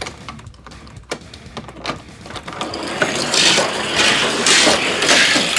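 Die-cast toy cars rolling along orange plastic race track: small clicks at first, then a louder, steady rolling rattle from about three seconds in.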